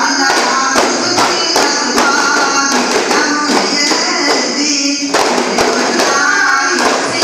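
Group of daf frame drums beaten together in a steady beat of about two to three strokes a second, with voices singing over them in a daf muttu performance.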